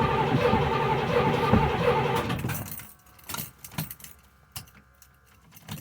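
A box Chevy's carbureted engine being cranked by the starter in an attempt to start it. It cuts off about two and a half seconds in without running, because the car has a misfire problem the owner has not yet traced. Light clicking and key jangling follow.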